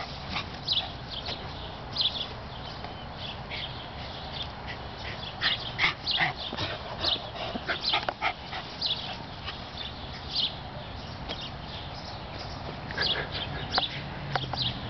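A dog's short, high, excited whines and yips, coming in scattered clusters.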